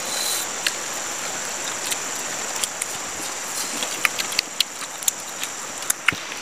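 Steady outdoor hiss with a continuous high-pitched insect drone, broken by scattered small clicks.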